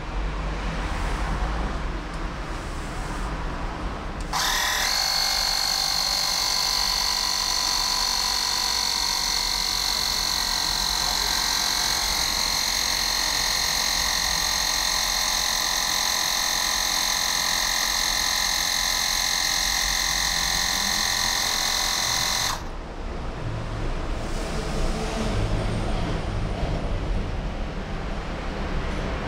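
Bosch EasyPump cordless mini compressor running steadily with a high whine as it inflates an electric scooter tyre from 1.3 to 3 bar. It starts about four seconds in and cuts off suddenly some eighteen seconds later, once it reaches the set pressure.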